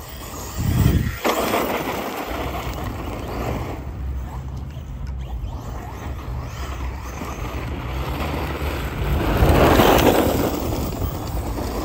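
Arrma Fireteam 6S RC truck driving on rough, gritty asphalt: the brushless motor runs with tyre noise on the grit, loudest as the truck passes close about ten seconds in. A thump sounds about a second in.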